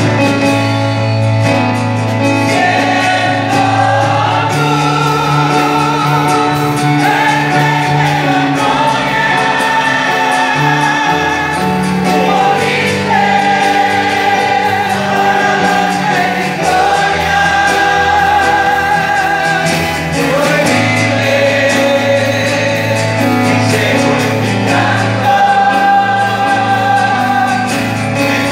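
Mixed church choir singing a hymn with long-held notes, accompanied by guitars and mandolins.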